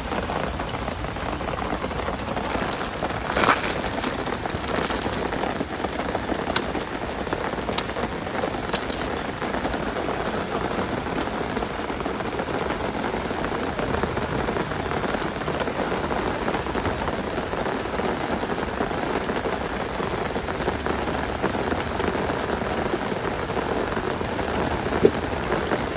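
Heavy rain falling steadily, with a few sharper drops striking a surface in the first ten seconds.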